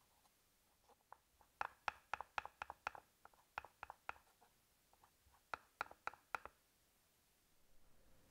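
Kitchen knife chopping pork on a cutting board: three runs of quick, sharp chops, about four or five a second, with short pauses between.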